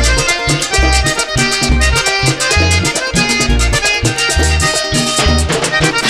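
Vallenato band playing an instrumental passage: accordion melody over a busy rhythm of caja drum, guacharaca scraper, conga and timbal, with electric bass notes pulsing underneath.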